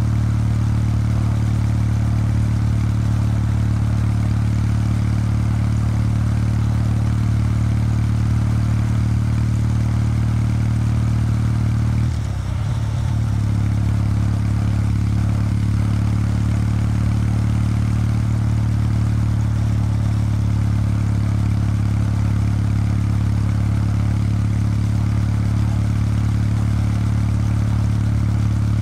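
Kawasaki W800 Street's air-cooled parallel-twin engine running through its stock exhaust at a steady cruise. The note breaks briefly about twelve seconds in, then settles back to an even drone.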